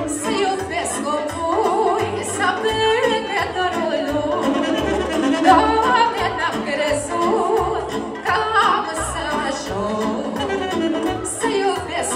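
A live band plays amplified through PA speakers: a woman sings a Romanian folk-style song into a microphone, backed by two saxophones and an electronic keyboard with a steady bass line.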